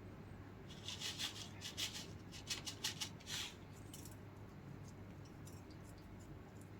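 Dried oregano being sprinkled by hand over a pizza: a series of faint, dry rustles between about one and three and a half seconds in.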